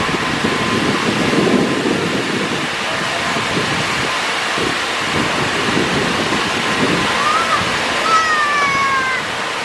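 Steady rush of an artificial waterfall pouring down a rock face, with uneven low rumbling through the first several seconds and a brief falling whistle near the end.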